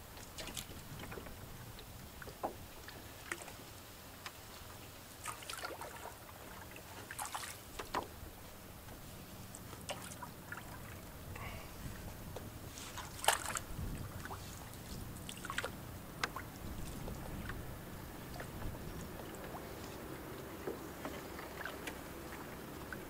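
A canoe being paddled slowly through a shallow, lily-pad-choked channel: paddle strokes and water with drips and sloshes, and scattered small clicks and knocks every second or two. The sharpest knock comes a little past halfway.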